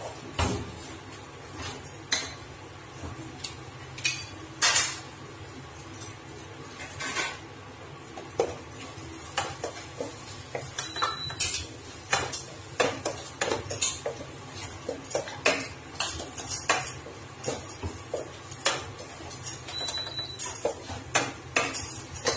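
A wooden spatula stirring and scraping chopped tomatoes and spices in a nonstick pan, with irregular knocks and scrapes against the pan that come more often in the second half. A steady low hum runs underneath.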